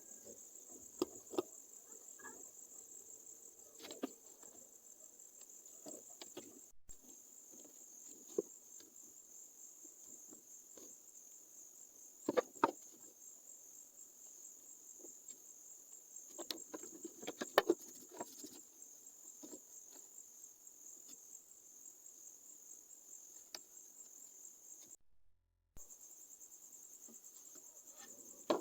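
Faint steady high-pitched cricket trilling, with scattered sharp clicks and taps, the loudest near the middle; the sound cuts out briefly near the end.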